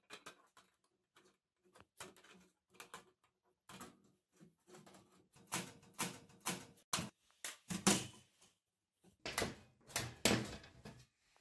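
Steel weld-mesh cage trap being handled, with its sheet-metal trigger plate and wire mesh clicking, clinking and rattling in irregular strokes. The clatter grows louder and busier in the second half.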